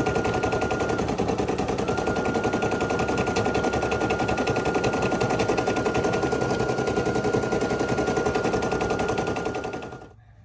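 Computerized embroidery machine stitching a design into a hoodie: a fast, even clatter of the needle mechanism with a steady high whine. It stops abruptly near the end.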